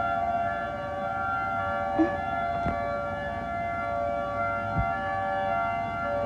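Outdoor tornado warning sirens sounding during a test, holding a steady tone made of several pitches at once, with no rise or fall. A few faint knocks sound close by.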